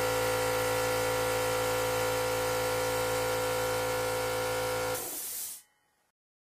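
Air compressor running steadily with a motor hum and a hiss, then stopping about five seconds in with a short burst of hissing air that quickly dies away.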